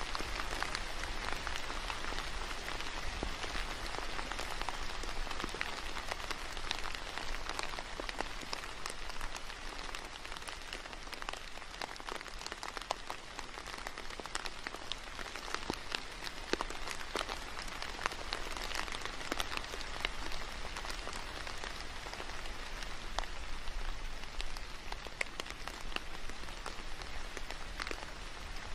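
Steady rain falling, an even hiss dotted with many small, sharp drop ticks.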